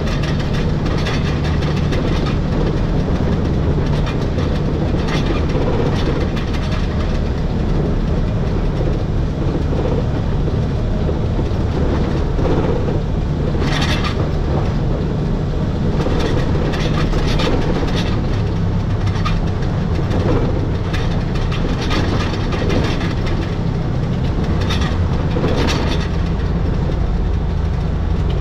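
Electric rack-railway train of the Schynige Platte Railway running steadily, heard from the driver's cab: a constant low drone with scattered clicks and knocks from the wheels on the track, and one sharper click about 14 seconds in.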